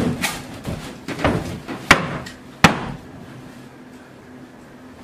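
A few sharp knocks or impacts in the first half, the two near the middle loudest, each with a short ringing tail, then a quieter stretch.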